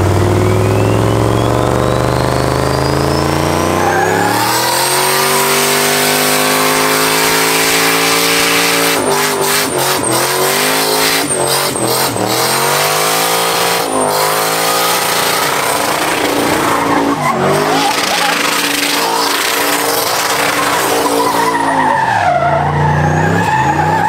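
An 800 wheel-horsepower dually race truck doing a burnout, loud: the engine revs climb over the first few seconds, then hold high with the rear tyres spinning and screeching. The revs dip and pick up again several times before dropping away near the end.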